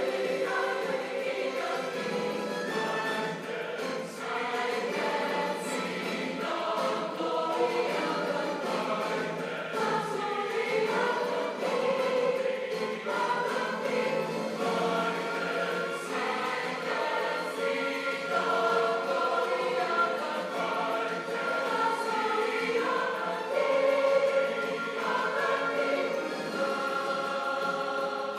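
A choir singing, several voices holding and moving between sustained notes in harmony.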